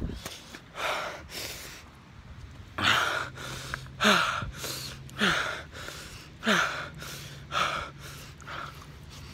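A runner's heavy gasping breaths, about one a second, several of them voiced exhales that fall in pitch: out of breath partway through a mile.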